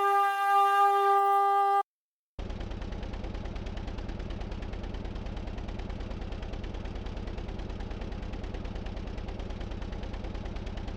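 A held horn-like tone cuts off about two seconds in. After a short silence comes a rapid, even run of pulses, many per second, that keeps a steady level, like an electronic sound effect.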